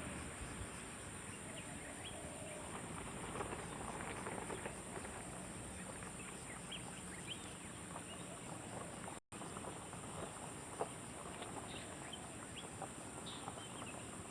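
Outdoor ambience: a steady high-pitched hiss under many short, faint bird-like chirps and ticks. The sound cuts out completely for a split second about nine seconds in.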